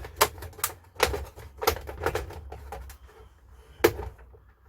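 Plastic retaining clips on an all-in-one computer's rear case cover popping loose as the cover is pried off: a string of sharp, irregular clicks that thins out toward the end, over a steady low hum.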